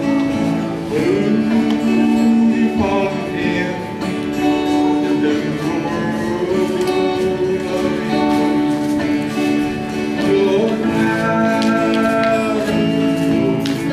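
Live acoustic guitar played with singing, sung notes held over the strumming.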